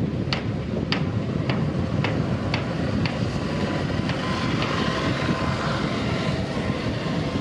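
Diesel locomotive hauling a passenger train, a steady low engine rumble. In the first three seconds, a run of evenly spaced clicks about twice a second fades out.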